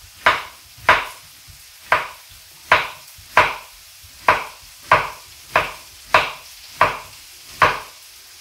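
Kitchen knife slicing a courgette into rounds on a wooden cutting board: a steady run of sharp chops on the board, about one every two-thirds of a second.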